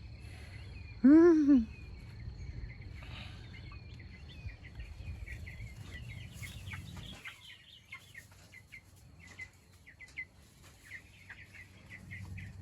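Young meat chickens peeping over and over in short high chirps, with one loud rising-and-falling call about a second in. A low rumble underneath cuts off about seven seconds in.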